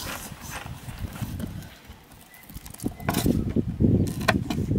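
Knife clicking against a cutting board as green chillies are slit, over a low rumble. It gets louder and busier about three seconds in.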